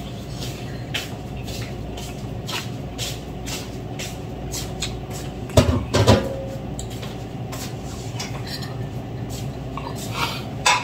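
Metal spoon clicking and scraping on a ceramic plate while eating, in many short, irregular clinks. There is a brief, louder sound about five and a half seconds in.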